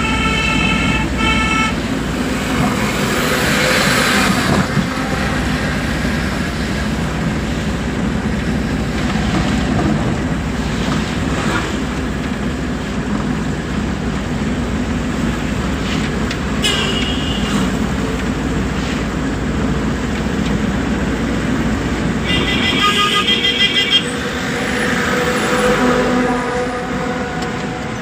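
Steady engine and road noise of a truck driving along a road, heard from inside the cab. Horns sound several times: a few short toots at the start, a brief toot about two-thirds of the way through, and a longer, rapidly pulsing horn blast near the end.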